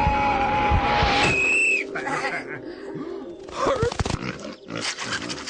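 Cartoon soundtrack: music with a long wavering held note for the first second or so, then a short high whistle-like tone, then short cartoon animal vocal sounds from the pigs and sheep.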